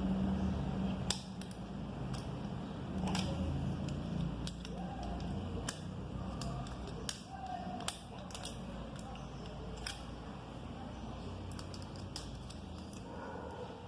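Scattered small clicks and taps from a thin screwdriver pushing a starter motor's carbon brushes into place against the armature commutator, over a low steady hum.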